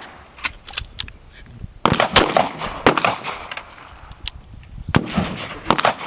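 Repeated gunshots at a shooting range: about ten irregularly spaced shots, some loud and some fainter, each with an echoing tail. The loudest come about two to three seconds in.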